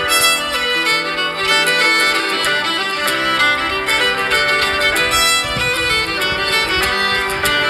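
Background music led by violin, a lively string tune with short plucked notes.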